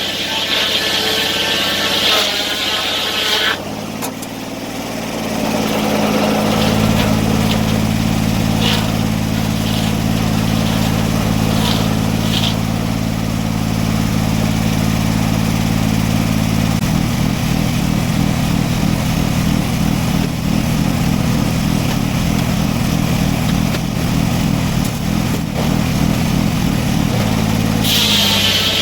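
A sawmill engine runs steadily throughout, its sound shifting a few seconds in and again about halfway through. A higher whine sits over it at the start and comes back near the end.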